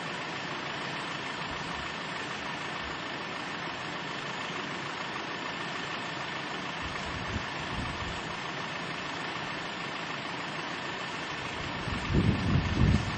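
Steady outdoor hiss with a faint hum, and low rumbling gusts of wind on the microphone about seven seconds in and again, louder, near the end.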